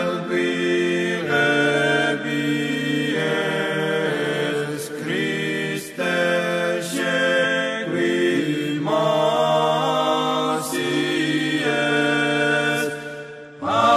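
Orthodox chant: several voices singing in slow held phrases in harmony over a steady low drone, the phrases changing every few seconds, with a short drop in level near the end.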